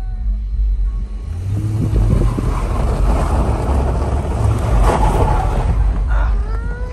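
Car engine revving hard, with rising tyre and road noise, as the car is driven in a tight circle, heard from inside the cabin. The tyres do not break loose into a spin: traction control is still on and the throttle is not fully open.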